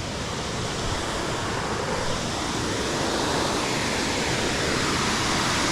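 Waterfall: a steady rush of falling water, growing gradually louder.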